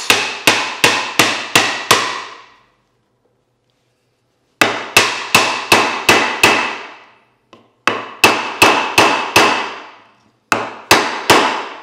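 Repeated sharp knocks on the end of an upright dovetailed wooden board, about three a second in four runs, each blow ringing briefly: the board is being struck down by hand to drive the glued dovetail pins into the tails and close the joint.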